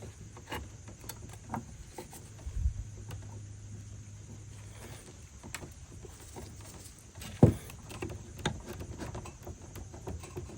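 Hand tools working a steel cotter pin out of a castle nut on a suspension spindle: scattered small metal clicks and scrapes, with a sharp knock about seven and a half seconds in, over a faint steady low hum.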